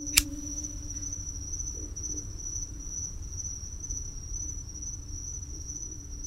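Crickets chirring in one steady, high-pitched trill over a low background rumble, after a sharp click right at the start.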